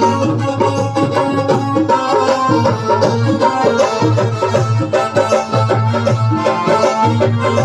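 Amplified instrumental interlude of a devotional song: an electronic keyboard playing the melody over a steady hand-drum rhythm.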